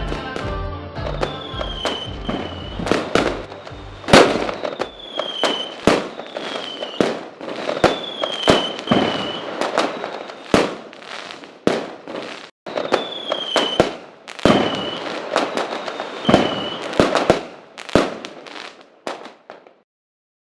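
Fireworks going off: a long, irregular series of sharp bangs, roughly one or two a second, with short falling whistles between them. Music fades out under the first few bangs. The bangs stop shortly before the end.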